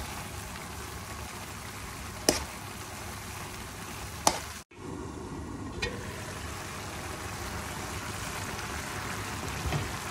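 Keema (minced meat) with water and masala sizzling and bubbling steadily in a metal pan. A metal spoon stirring it clinks sharply against the pan three times, and the sound breaks off for a moment near the middle.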